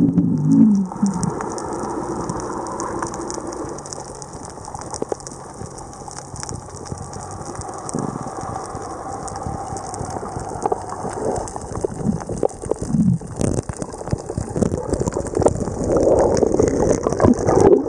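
Underwater sound on a dive: a dense, continuous crackle of fine clicks, with the diver's exhaled bubbles rumbling and gurgling at the start and again near the end.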